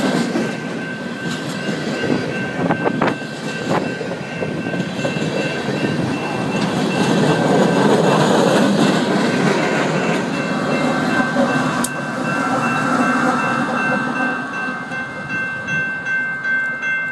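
Long string of BNSF hopper cars rolling past close by: steel wheels rumbling and clacking over the rail joints, with a few sharp clanks early on. A grade-crossing bell rings steadily throughout.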